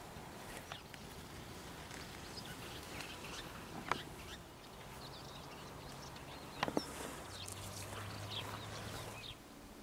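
Faint rural outdoor ambience with scattered short bird chirps and a few sharp clicks, two of them close together about two-thirds of the way in. A low steady hum runs for about two seconds near the end.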